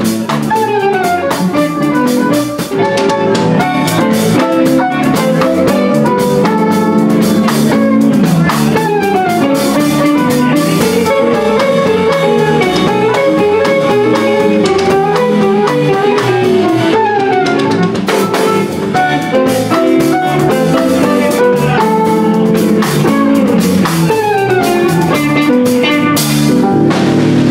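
Live band playing an instrumental boogie tune: a violin bowing the lead line, with sliding notes, over electric guitar and drum kit.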